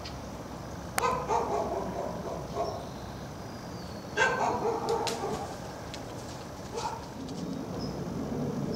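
Dogs barking in short bouts, once about a second in and again about four seconds in.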